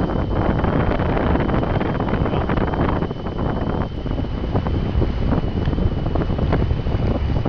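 Wind buffeting the microphone: a loud, steady low rush with constant gusty flutter. A thin, steady high tone runs beneath it.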